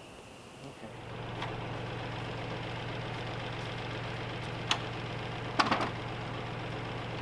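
Tractor engine idling steadily, coming in about a second in, with a few sharp knocks or clanks over it, a double one near the end.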